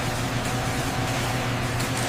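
A machine's engine running steadily, with a constant low hum under an even hiss.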